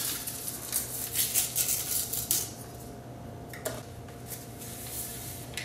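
Foil sauce mix pouch crinkling and rustling as it is torn open and handled, with a sharp click a little past halfway. A low steady hum runs underneath.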